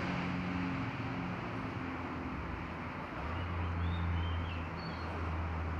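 Steady outdoor background noise with the low hum of an engine running, which grows stronger about three seconds in, and a few faint high chirps near the middle.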